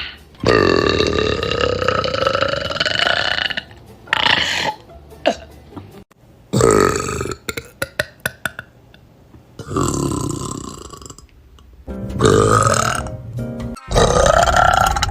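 Women belching loudly, about six separate burps one after another, the first a long drawn-out belch of over three seconds rising in pitch, the rest shorter.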